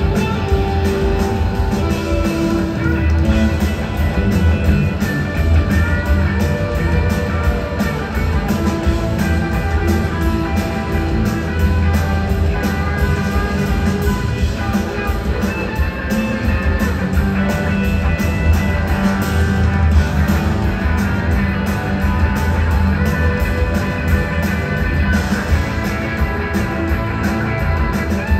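Live rock and roll band playing: several electric guitars over drums and bass in a fast, driving rhythm.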